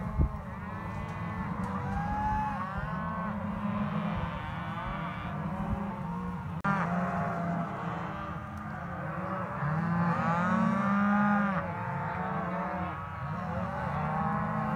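A herd of cattle bawling continuously, many calls overlapping one another, with a thump right at the start and another near the middle.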